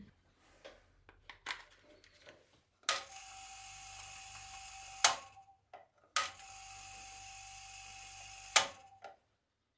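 Compressed air released twice, each burst a steady hiss with a whistling tone lasting about two seconds, starting and stopping with a click. A few small clicks come before the first burst.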